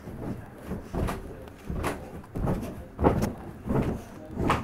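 A child making a string of short, sharp percussive sound effects, about seven in a row at a fairly even pace.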